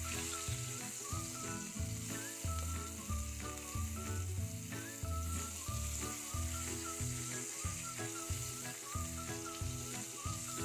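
Whole pigeons sizzling as they fry in a little olive oil in a pan, turned now and then with a silicone spatula. Background music with a steady bass line plays over it.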